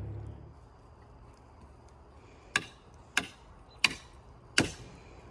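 A hammer striking wood, four sharp, evenly spaced blows about two-thirds of a second apart, as boards are nailed together for a raised bed. A low rumble fades out in the first half second.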